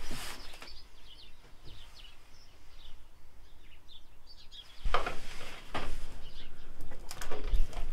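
Birds chirping in the background. About five seconds in, louder irregular clicking and clatter start: a small ratchet wrench working a bolt on the Ford Transit's rear door panel.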